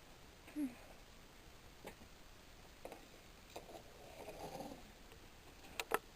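Faint scattered light clicks and taps in a quiet room, with a brief muffled murmur about four seconds in.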